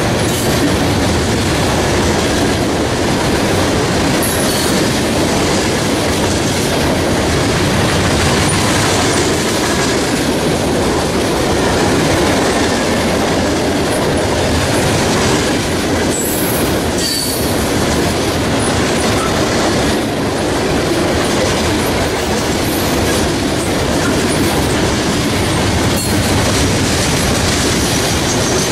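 Freight train of covered hopper cars rolling past: a loud, steady rumble and clatter of steel wheels on the rails, with a few brief high wheel squeals.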